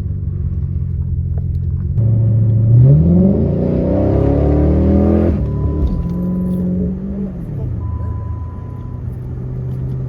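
Hemi V8 car engine accelerating hard: the pitch climbs steeply for about three seconds, drops off sharply just after the middle, picks up briefly once more, then settles back to a steady lower run.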